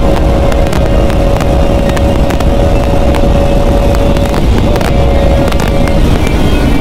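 Bajaj Pulsar RS200's single-cylinder engine running at high, steady revs at speed, its note wavering briefly about four and a half seconds in, over heavy wind rush on the microphone.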